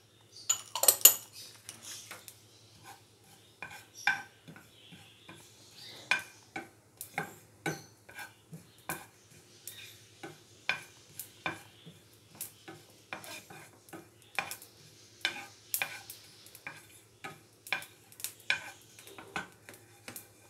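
Wooden spoon stirring whole cumin seeds as they dry-roast in a nonstick frying pan: irregular taps and scrapes, often several a second.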